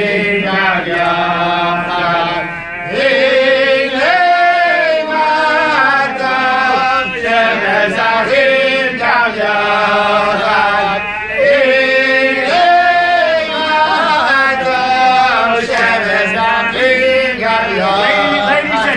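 Men singing a slow, chant-like melody in long held phrases, with brief breaths between phrases.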